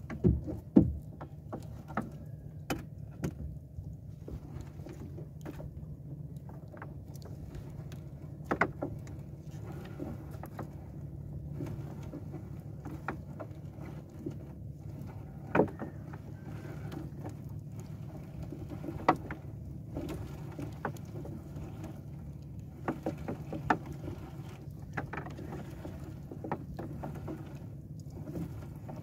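Fishing net being paid out over the side of a wooden outrigger boat: irregular sharp knocks and clicks as the net and its floats and weights strike the hull, the loudest just under a second in, over a steady low hum.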